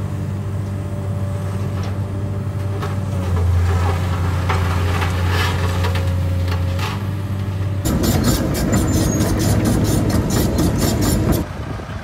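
Heavy vehicle engine running steadily at a low drone. About eight seconds in it gives way abruptly to a louder, rougher engine sound with a fast rattle, which cuts off shortly before the end.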